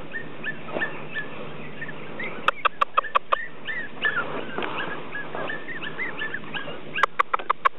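Ruby Cavalier King Charles Spaniel puppy whimpering in many short, high whines. Two quick runs of sharp clicks come in, one about two and a half seconds in and one near the end.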